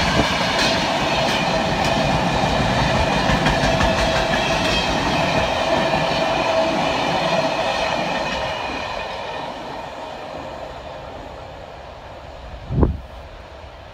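A long freight train rolling past, its wagon wheels clattering over the rail joints with a steady whine above the rumble. The noise fades from about eight seconds in as the last wagons pull away. A single short thump near the end.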